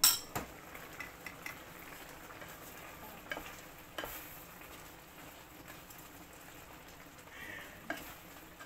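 Glass lid lifted off a frying pan with a sharp clink. Then a wooden spatula stirs chicken pieces simmering in tomato sauce, with a soft sizzle and a few knocks of the spatula against the pan.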